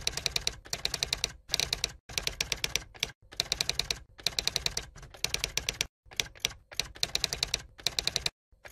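Typewriter typing sound effect: runs of rapid key clicks broken by short pauses, the runs following the words as they are typed out.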